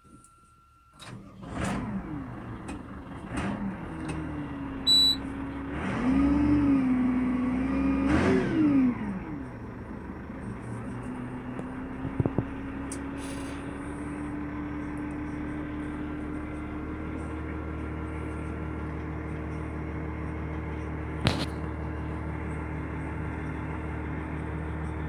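Lamborghini R4.105 tractor's diesel engine, heard from the cab, starting up after a steady beep: it is revved up and down twice, then settles to a steady idle. A few sharp clicks are heard along the way.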